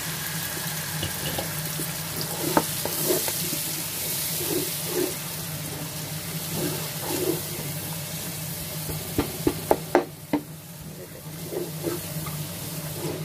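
Tomato purée sizzling in hot oil in a non-stick pot while a wooden spoon stirs and scrapes it in repeated strokes. A few sharp knocks come about nine to ten seconds in, and the sizzle dies down after them.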